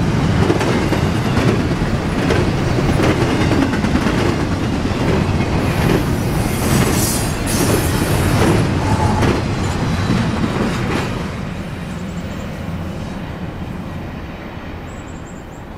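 Double-stack container freight train passing close by: a steady rumble of steel wheels on rail with clicks over the joints, fading away after about eleven seconds as the last cars go by.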